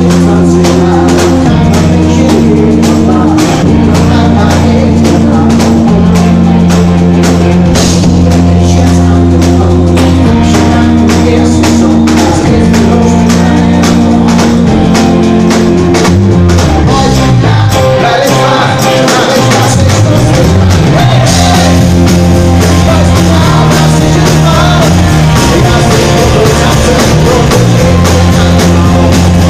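A live pop-rock band playing at full volume, heavy in the bass, with acoustic guitar. A little past the middle, the low notes slide up and down for a few seconds before the steady chords return.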